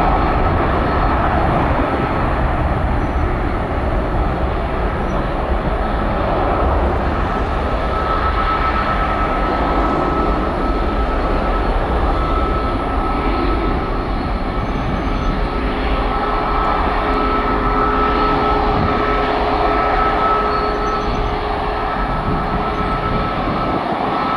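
Boeing 737 jet engines running at high thrust on the runway: a loud, steady jet noise with a fan whine held at one pitch. A lower second whine joins for a few seconds past the middle.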